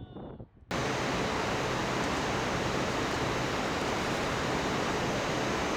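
Steady, even rushing of wind on the microphone. It cuts in suddenly under a second in, after a moment of near silence.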